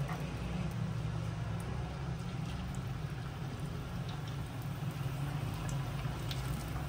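A samosa deep-frying in hot ghee in a karahi: light sizzling and scattered crackles over a steady low hum.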